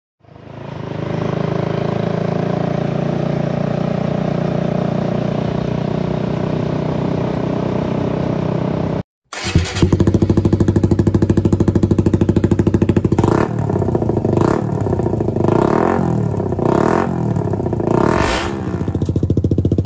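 Small motorcycle engine idling steadily. It cuts off about nine seconds in, then a second recording starts: an idle with a fast, even pulse, revved in five short blips.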